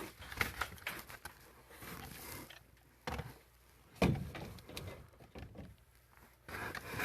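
Scattered clicks and knocks from hands handling metal parts and tools, with one sharp, louder knock about four seconds in.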